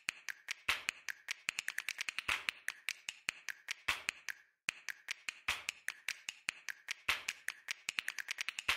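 Rapid, irregular clicking, several sharp ticks a second, with a short break about four and a half seconds in.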